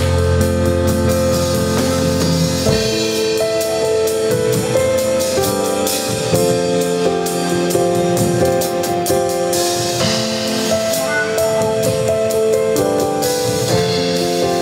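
Instrumental music from a live church band: held keyboard chords that change every second or so, over drum kit with a steady run of cymbal strokes.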